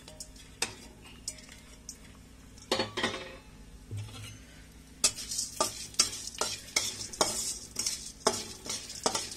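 Spatula stirring and scraping chana dal, urad dal and cumin seeds around a steel kadai, with a light sizzle as they roast in a little hot oil. Only a few scattered clicks at first; about five seconds in the stirring picks up into quick, frequent scrapes and clicks.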